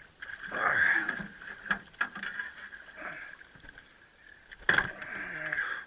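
Water splashing and sharp knocks on a small boat as a hooked redfish thrashes alongside, with one loud splash or thump about five seconds in.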